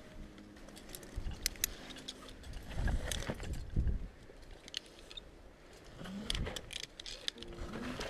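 Metal climbing gear, carabiners and quickdraws, clinking in short scattered clicks, with dull bumps about three and four seconds in.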